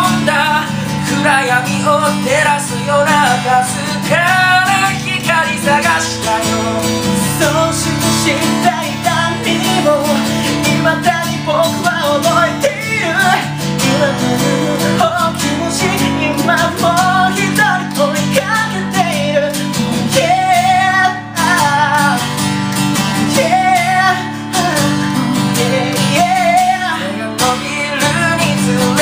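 A man singing a Japanese song while strumming chords on an acoustic guitar.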